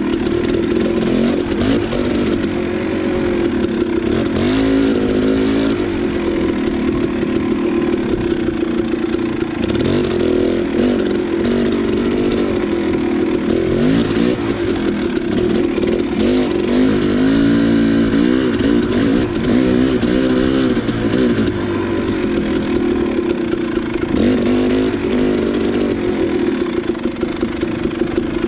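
KTM 300 XC two-stroke single-cylinder dirt bike engine running under load, its pitch repeatedly climbing and dropping as the throttle is worked on and off.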